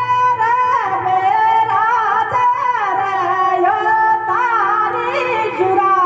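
Live Rajasthani Teja folk music: a melody of long held notes that step up and down, with singing.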